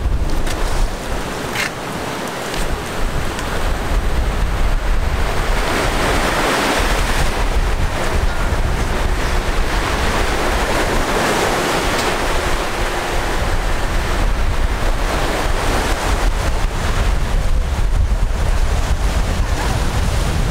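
Wind noise on the microphone over the steady hiss of ocean surf. The hiss swells for several seconds in the middle.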